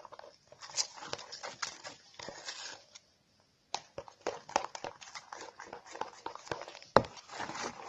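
Glue and shaving foam being stirred together into slime: a run of irregular wet clicks and scrapes. There is a brief dead gap about three seconds in and one sharper knock near the end.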